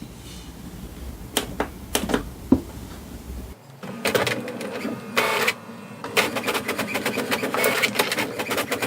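HP Smart Tank ink tank all-in-one printer starting a black copy job: a few clicks, then its mechanism starts running about four seconds in, with rapid clicking from about six seconds as the paper feeds.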